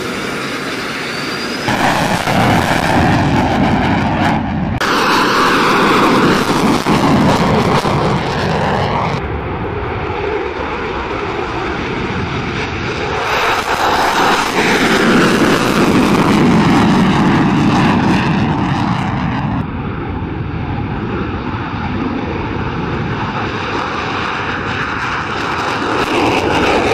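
Fighter jet engines at high power on takeoff, in several cut-together shots: loud, steady jet noise that swells and fades as each aircraft passes, with falling sweeps in pitch. It builds again near the end as a Panavia Tornado lifts off.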